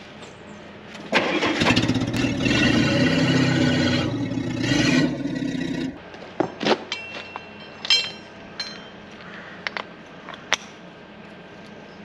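Electric drill running at speed for about five seconds, starting about a second in and cutting off suddenly, then a few sharp clicks and knocks.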